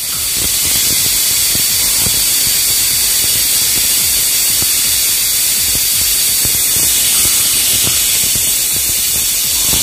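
Stovetop pressure cooker whistling: steam escaping from the weight valve in one loud, steady hiss that builds over the first second and cuts off suddenly at the end. The cooker has reached full pressure while cooking dal, and this is one of the whistles counted to time the cooking.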